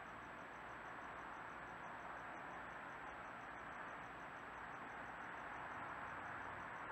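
Faint steady hiss of a trail camera's microphone and electronics, with a thin high whine and a faint high pulsing about five times a second.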